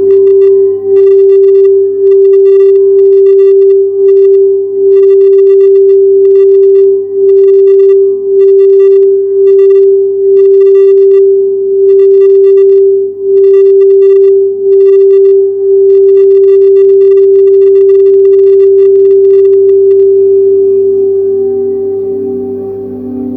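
Quartz crystal singing bowl sounding one long steady note that swells and dips about once a second, with faint higher overtones above it. It fades away over the last few seconds.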